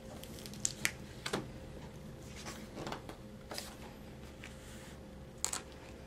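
A hardcover picture book being opened and its pages handled: scattered soft taps and paper rustles over a faint steady hum.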